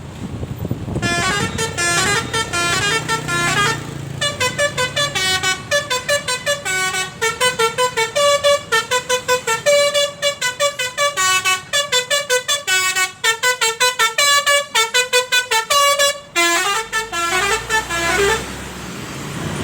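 Telolet multi-tone bus horn playing a fast tune of many short, staccato notes, starting about a second in and stopping shortly before the end. A low engine rumble comes in under it near the end.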